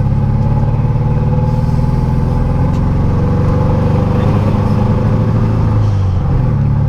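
Air-cooled 1700 cc flat-four engine of a turbocharged 1979 VW Beetle, heard from inside the cabin, running steadily under way with a low drone. Its note shifts briefly about six seconds in.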